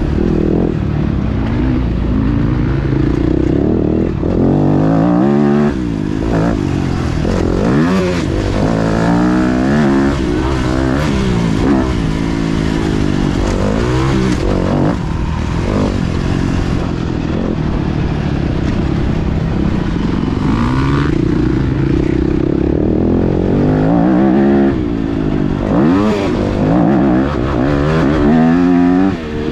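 Yamaha YZ250F four-stroke single-cylinder dirt-bike engine under hard riding, its pitch sweeping up and dropping back again and again as it is accelerated, shifted and rolled off.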